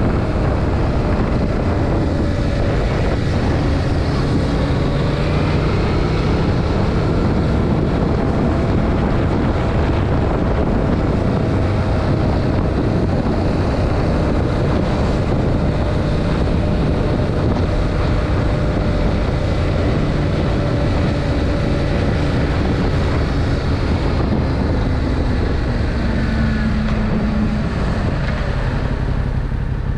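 Yamaha MT-07's stock-exhaust 689 cc parallel-twin engine running while the bike is ridden, its note drifting up and down gently, mixed with heavy wind noise on the microphone.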